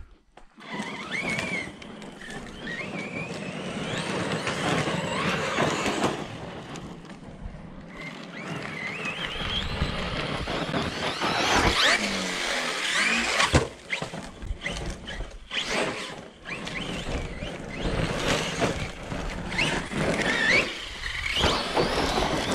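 Team Corally Kagama XP 6S RC monster truck being driven hard. Its brushless electric motor whines, rising and falling in pitch with the throttle, over a steady noise of tyres on the ground. A single sharp knock comes a little past halfway.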